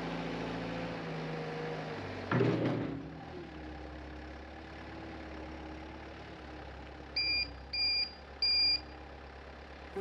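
Skid steer diesel engine running steadily as the machine moves, with a brief louder surge a little over two seconds in, after which the engine note settles lower. Near the end come three short, high backup-alarm beeps.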